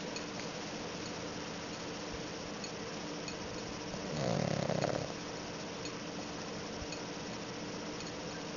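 Pug snoring: one snore about four seconds in, lasting about a second, over a steady background hiss.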